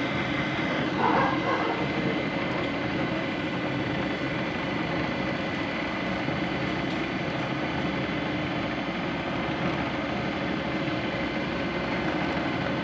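3D printer running: a steady mechanical hum of its fans and motors with several constant whining tones over it, and a brief louder sound about a second in.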